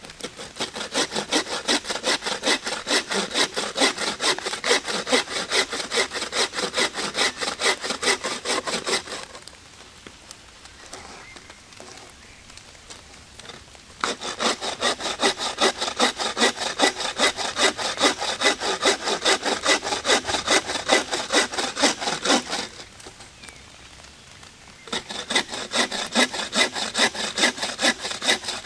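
Wooden bucksaw cutting through a branch in quick, even back-and-forth strokes. The sawing comes in three bouts, stopping about nine seconds in and again a little past twenty-two seconds, with pauses of a few seconds between.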